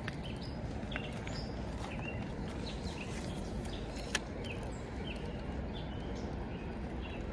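Small birds chirping in short, scattered calls over a steady low rushing noise, with a single sharp click about four seconds in.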